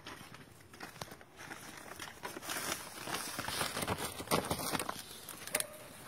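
Irregular rustling and crinkling handling noise with scattered light clicks and knocks as things are shifted about.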